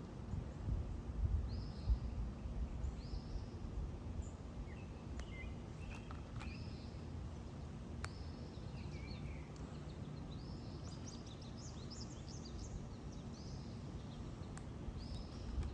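Small birds chirping repeatedly over a steady low rumble of outdoor noise, with a few light clicks from the middle on.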